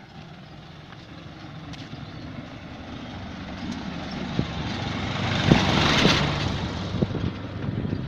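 A small light truck drives up the brick lane and passes close by. Its engine noise swells to a peak about six seconds in, with a few sharp knocks and rattles, then fades as it goes.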